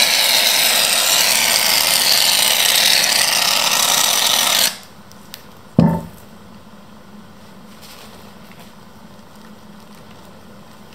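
Aerosol can of shaving foam spraying in one long, loud hiss that stops abruptly about five seconds in. A short low sound follows about a second later.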